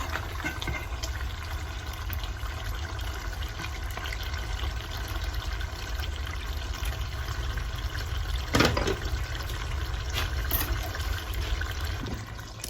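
A pot of collard greens bubbling steadily in broth on the stove, with one knock about two-thirds of the way through.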